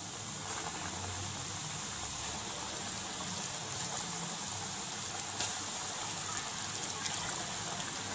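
Flour-coated chicken pieces deep-frying in hot oil in a wok: a steady sizzle with scattered crackles and pops.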